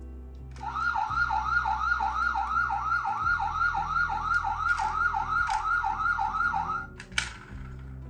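Electronic toy emergency-vehicle siren giving a fast yelping wail, about three rises a second, for about six seconds, then cutting off, followed by a single click.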